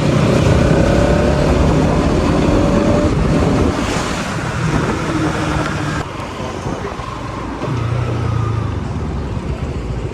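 Bajaj Pulsar NS200 motorcycle running on the road, with road and wind noise. The engine pitch rises and falls, and the sound eases off about six seconds in.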